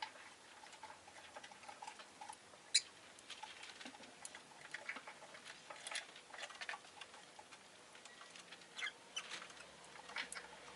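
Rosy-faced lovebird making faint, scattered clicks and tiny high chirps at an irregular pace, the sharpest one about three seconds in.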